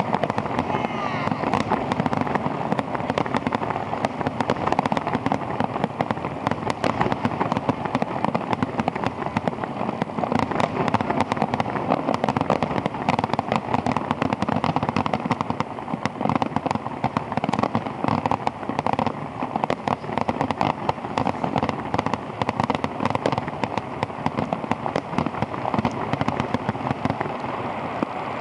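Fireworks finale barrage: aerial shells bursting in rapid, overlapping succession, a dense stream of bangs.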